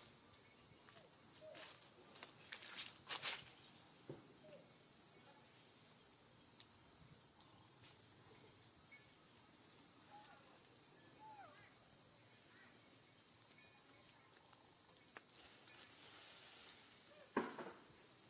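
Steady high-pitched drone of insects in the trees, with a few faint short calls and some sharp clicks and knocks, two of them near the end.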